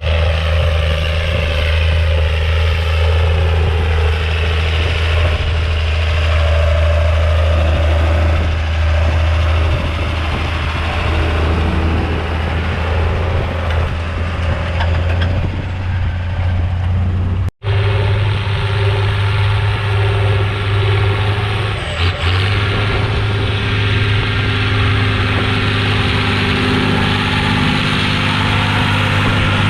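Vintage tractor engine running steadily at low revs. It cuts out abruptly for an instant about two-thirds of the way through, then a similar steady engine sound carries on at a slightly different pitch.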